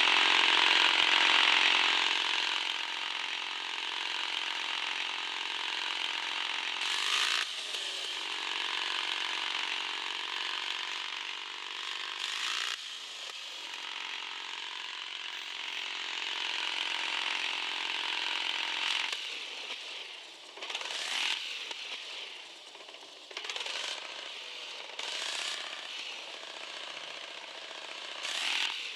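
Radio-controlled 4x4 car's small electric motor and gearbox whining steadily under throttle, with brief let-offs. After about twenty seconds the whine comes only in short bursts.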